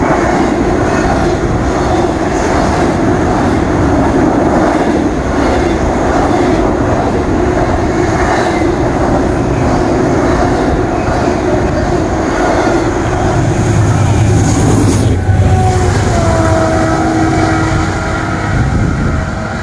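Double-stack intermodal freight train rolling past close below: a steady, loud rumble of wheels and cars on the rails. About 14 seconds in, a deeper hum swells as the train's rear locomotive passes underneath, followed by a steady whine.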